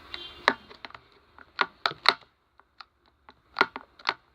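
Slime being squeezed and poked by hand, giving an irregular string of sharp clicks and pops.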